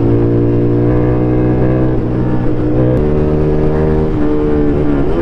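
Ducati Scrambler's L-twin engine running on the move, heard from the rider's seat with a rush of wind. Its note holds steady, changes about three seconds in, then dips and climbs again near the end.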